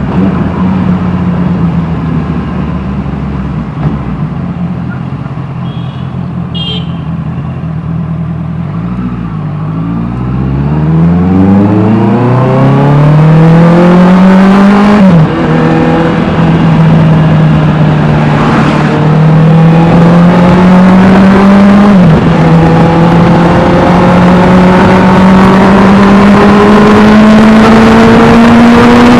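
Honda CBR650R inline-four with an Austin Racing exhaust, running at a steady pitch under way, then accelerating hard. Its pitch rises through the revs, drops sharply at two upshifts about halfway through and near the three-quarter mark, and climbs again after each.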